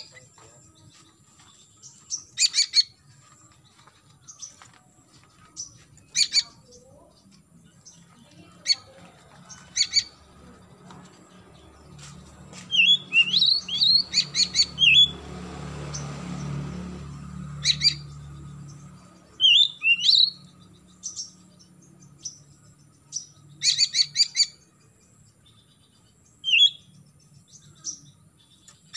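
Oriental magpie-robin calling: short, sharp chirps and whistled notes every few seconds, some in quick runs of several. A low rumble swells and fades in the middle.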